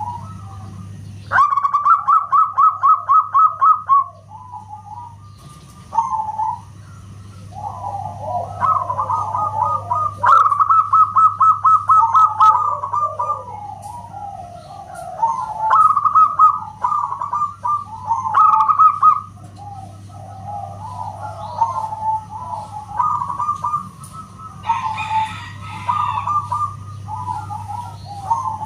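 Zebra doves (perkutut) singing: rapid, staccato cooing trills repeated phrase after phrase, at times overlapping, over a steady low hum.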